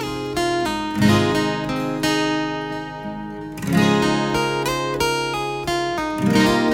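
Instrumental music: acoustic guitar chords, a new chord struck about every two and a half seconds and left to ring.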